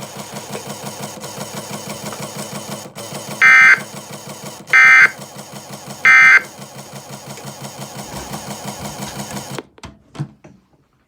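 Emergency Alert System end-of-message code: three short, loud bursts of digital data tones a little over a second apart, marking the end of the alert. A steady buzzing hum runs underneath and cuts off suddenly near the end.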